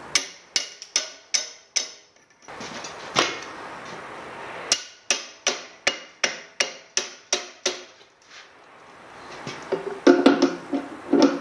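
Hammer blows on metal at a Bedford RL engine block, each with a short ring. There are a few spaced blows, then a quick even run of about three blows a second, and a clatter of metal near the end.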